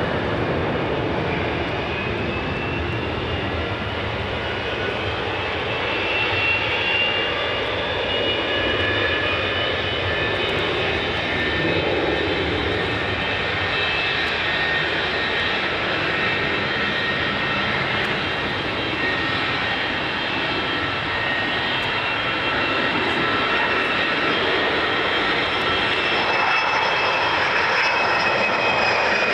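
BAC One-Eleven airliner on final approach, its Rolls-Royce Spey jet engines running with a steady rushing noise and several high whining tones that slowly fall in pitch. It grows a little louder near the end.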